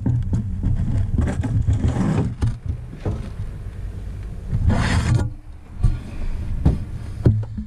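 Low rumble on a slowly drifting fishing boat, with scattered knocks and scrapes of handling in the boat and a louder rasping scrape about five seconds in.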